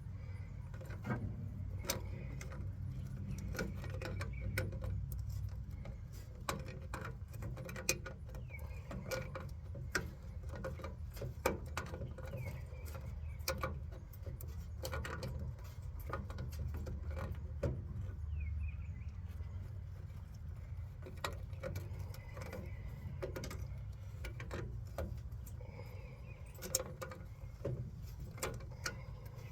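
Hand tools tightening a part onto a new radiator: irregular metallic clicks and small knocks over a low steady rumble.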